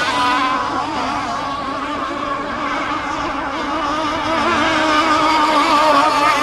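Several radio-controlled sport hydro racing boats running on the water with their motors at high speed, a mix of pitches wavering up and down as the boats turn and pass around the course.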